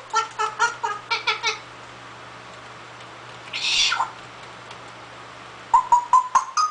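Pet parrot vocalizing: a quick run of about eight short pitched calls, then a single harsh, hissing call about three and a half seconds in, then another quick run of short calls near the end.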